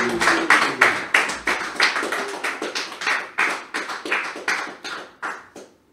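A small audience applauding, with distinct claps about three a second that fade out near the end, in response to a working demo.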